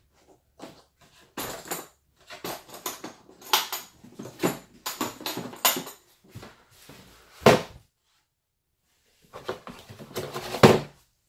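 Hard black plastic tool carry case being handled and opened: a string of plastic clicks and clacks as its latches are unsnapped and the lid swung open, with a loud clack past the middle and another cluster near the end.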